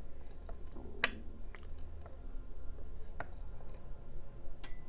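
TICONN 19 mm 72-tooth ratcheting wrench being worked back and forth, its ratchet giving a few sparse clicks, the sharpest about a second in. The ratchet has about 15 degrees of slack before each click, not the advertised 5.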